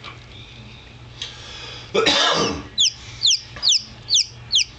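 Newly hatched chicken chick peeping: a run of short, high, falling peeps, about three a second, through the second half. A short noisy burst comes just before the peeping starts.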